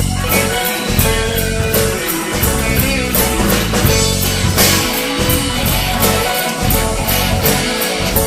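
Rock band playing an instrumental passage: guitar over a steady beat on a drum kit, with no singing.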